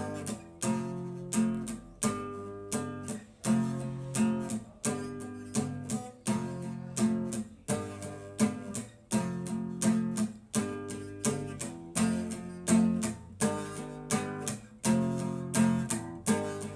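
Acoustic guitar strumming chords in a steady rhythm, an instrumental break in a song with no singing.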